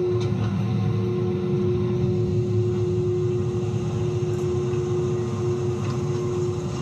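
Chairlift drive running at a steady speed: a constant electric motor whine over a low mechanical rumble.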